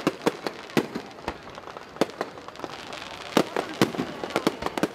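Aerial fireworks going off: an irregular run of sharp bangs, several a second, some louder than others.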